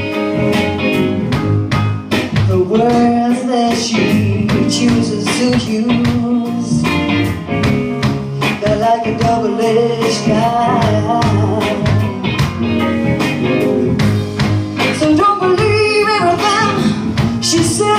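Live blues-rock band playing: a woman singing lead over electric guitar, electric bass, keyboards and a drum kit with a steady beat.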